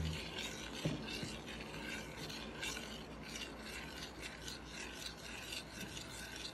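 Metal fork stirring and scraping around the bottom of a stainless steel saucepan of hot milk, butter and sugar, melting in chocolate chips for a ganache: a run of repeated rasping strokes, with one sharper tap about a second in.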